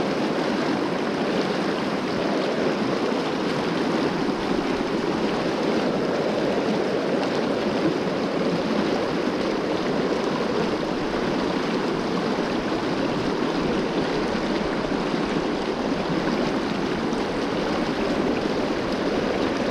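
Fast river riffle rushing over rocks close by: a steady, unbroken rush of water.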